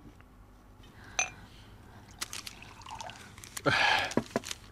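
Glass clinking as a bottle of cough medicine and a glass are handled: one ringing clink about a second in and a few small clicks. Near the end comes a short, loud rushing burst of about half a second.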